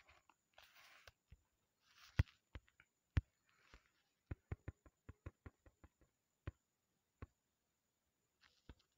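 Faint, scattered clicks and taps of a finger on a phone touchscreen, with a quick run of about four a second between four and six seconds in; the sharpest two come around two and three seconds in.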